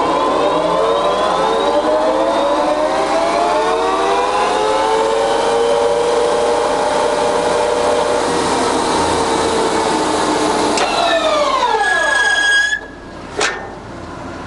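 Jessey Major 1860 centre lathe's headstock spindle and gears running at top speed in reverse, a loud whirring whose pitches slowly glide. About 11 s in the pitch falls away as the spindle runs down, the sound drops off sharply near 13 s, and a single click follows.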